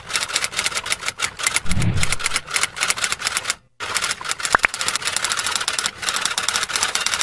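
Fast, dense run of sharp clicks like rapid typing, with a low thump about two seconds in. There is a brief break near the middle, then a short high rising chirp, and the clicking resumes.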